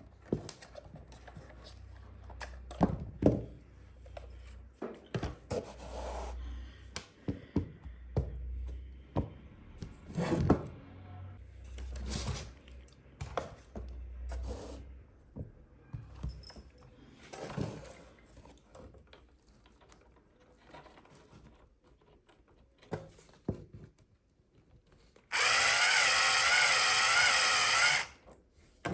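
Small electric motors of toy RC construction vehicles running in short stretches, with many plastic knocks and clicks. Near the end a loud, wavering whine lasts about three seconds.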